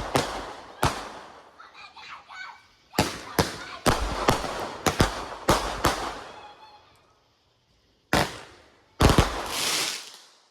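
Consumer fireworks going off in a string of sharp bangs: one at the start and one just after, a rapid run of about six between three and six seconds in, then two more near the end, the last trailing into about a second of crackling hiss.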